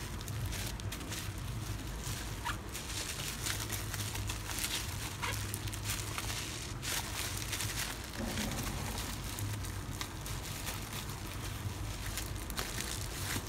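Bubble wrap crinkling and crackling as a package wrapped in it is handled and turned over, with many short sharp crackles throughout.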